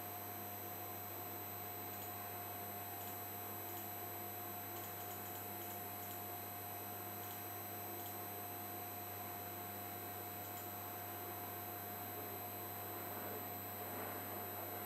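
Steady electrical hum and high whine from an electric torsion testing machine's drive, with faint scattered computer-keyboard clicks in the middle. Near the end a soft rushing noise grows as the machine starts twisting back and forth in a sine-wave cycle.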